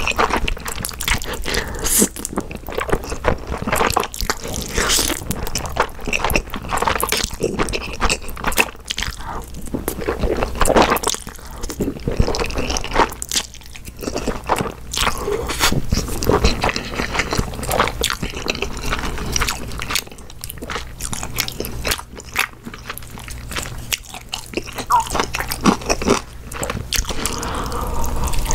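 Close-miked slurping and wet chewing of Chapagetti black-bean-sauce instant noodles. Near the end comes a crunchy bite into napa cabbage kimchi.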